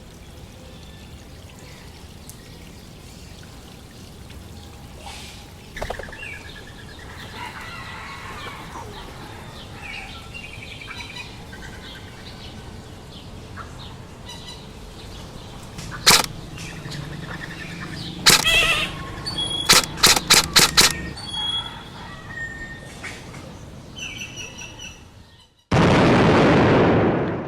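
Jungle ambience with faint bird chirps over a steady background hiss. About two-thirds of the way in come a few sharp cracks: one, then another, then a quick run of about five. Near the end a loud rushing noise comes in suddenly and then cuts off.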